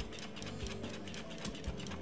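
Wire whisk beating thick cornmeal porridge in a metal pot, clicking against the pot about four times a second.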